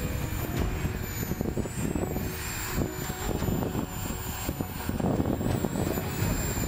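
Twin 70 mm electric ducted fans of an RC F-35B model jet running in slow, near-hover flight: a steady rush of air with a high fan whine that wavers in pitch as the throttle is worked.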